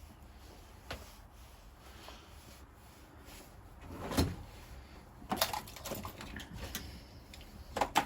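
Small metal clicks and scrapes of a VW T4 lock barrel and its coil spring being handled while the spring is wound back into place: a single click about a second in, a short scrape around the middle, then several sharp clicks in the second half.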